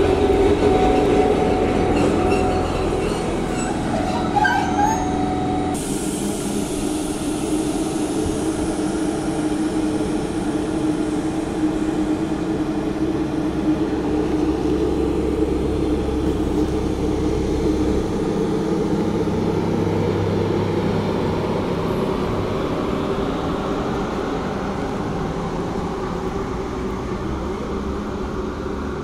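SNCF BB 22200-class electric locomotive moving slowly with its coaches. Its traction motors and cooling fans give a steady hum over the rumble of the train, which fades a little near the end.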